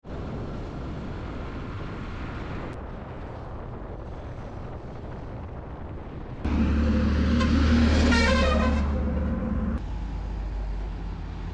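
Road traffic with motor vehicles running. A louder vehicle passes close about two-thirds of the way through, with a pitched sound that rises and then falls as it goes by.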